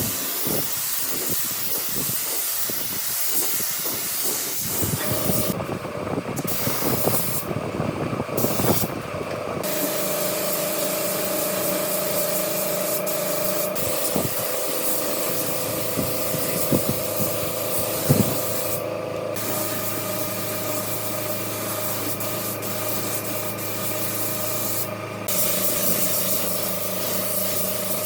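A power tool running with a steady hiss over a motor hum. The hum settles into a steady pitch about ten seconds in, and the hiss briefly drops out a few times.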